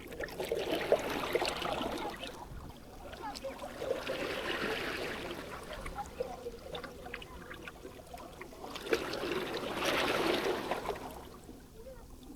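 Small waves washing up the shore: three surges of rushing water that swell and fade away, with scattered clicks and rattles through them.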